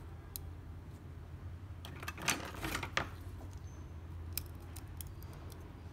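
Small-parts handling on an opened smartphone: a short scraping clatter of metal tweezers and fingertips on the board and its parts about two seconds in, ending in a sharp click, then a few light ticks. A low steady hum sits underneath.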